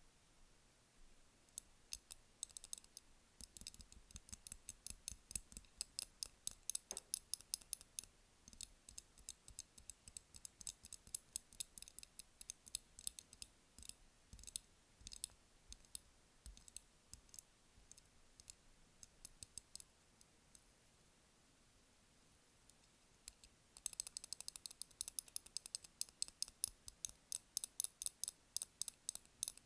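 Light, crisp tapping on candles, ASMR-style: quick runs of sharp taps several a second. The taps thin out for a few seconds about twenty seconds in, then pick up again fast.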